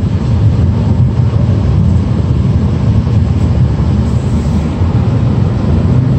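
Steady low road rumble inside a 2017 Ford Focus hatchback's cabin while it cruises at highway speed: tyre and engine noise.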